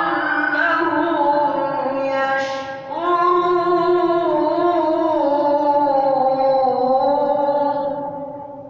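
A man's voice reciting the Qur'an in melodic tajweed style, with long, ornamented, held notes. There is a short break about two and a half seconds in, and the phrase fades away near the end.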